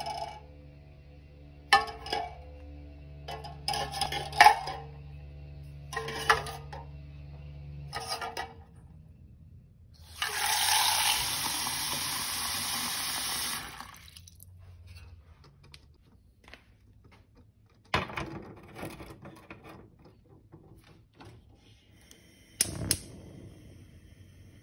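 Knocks and clinks of an empty tin can and eggs against a metal sink rack, then a kitchen tap runs water into the can for about three and a half seconds. Near the end comes a sharp knock as the can is set on a gas stove's grate.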